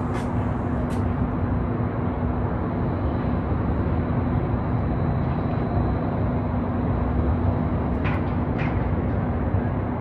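Wind rumbling on the microphone, with a steady low hum underneath and a couple of faint clicks near the end.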